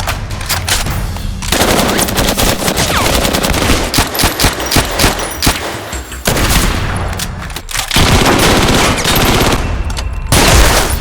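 Rapid automatic gunfire in long dense bursts of sharp shots, dipping briefly about six and eight seconds in, with the loudest shots near the end.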